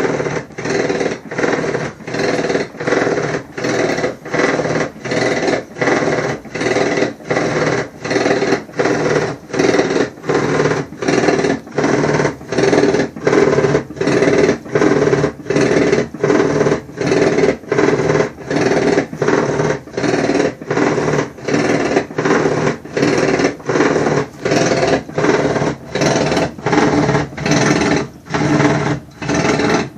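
Kenmore 28102 HE washing machine running with a loud, rhythmic noise pulsing about one and a half times a second, a noise loud enough that the owner is weighing returning the machine.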